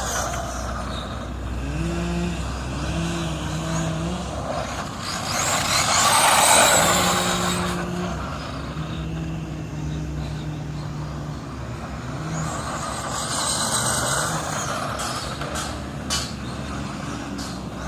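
An HPI Bullet MT electric RC monster truck running on a 3S LiPo: its motor whines, the pitch rising and falling over and over as the throttle is worked. About six to seven seconds in there is a louder rush of noise.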